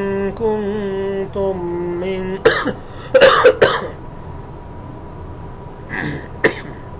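A man chanting Quranic Arabic, holding one long vowel that steps between a few pitches, then loudly clearing his throat a couple of times about two and a half seconds in. A small click comes near the end.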